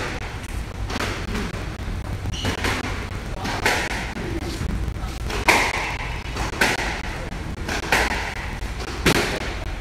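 Squash rally: the ball smacking off rackets and the court walls in sharp knocks, about one every second or so, eight or nine in all.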